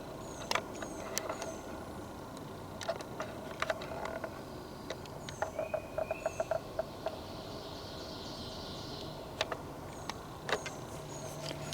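Footsteps crunching on the forest floor with scattered twig-like clicks, while small birds give repeated short, high, falling chirps.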